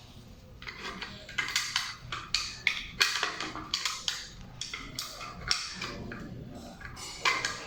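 Irregular series of sharp clicks and knocks of hard objects being handled and tapped, several a second and uneven in loudness, starting about a second in.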